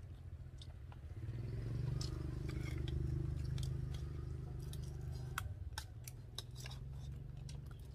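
A low, steady motor hum that swells about a second in and eases off after about five seconds, with scattered sharp clicks and crunches over it.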